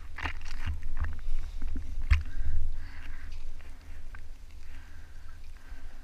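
Water sloshing against a small sailboat's hull in open-ocean swell, with wind rumbling on the microphone. A few sharp knocks and splashes come in the first two seconds, the loudest about two seconds in.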